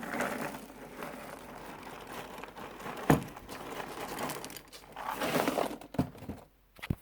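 Cereal packaging crinkling as it is handled, with a few sharp knocks: one about three seconds in and two more near the end.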